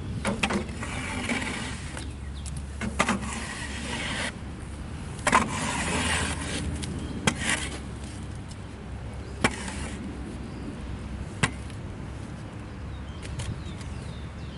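Frontier OS23 sawmill's engine running with a steady low hum, with stretches of scraping over the first several seconds and a handful of sharp knocks scattered through, as the rake-and-board attachment is tried at clearing sawdust.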